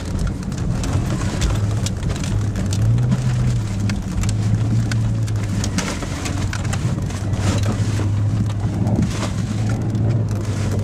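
Jeep Cherokee engine heard from inside the cab, driven hard through deep snow, its note rising and falling with the throttle. Many sharp clicks and knocks sound over it throughout.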